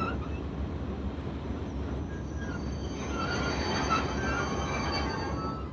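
Ex-NS 2400-series diesel-electric locomotives hauling a work train slowly past: a steady low engine and rail rumble. Thin high wheel squeals join from about two seconds in.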